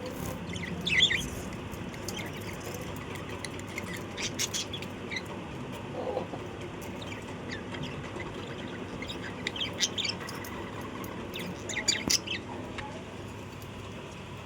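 Small birds chirping in short clusters a few seconds apart, over a steady background hiss.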